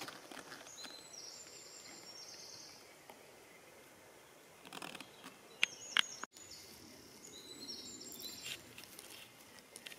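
Faint outdoor ambience with small birds singing short high-pitched phrases. A few sharp clicks fall around the middle, followed by a brief dropout.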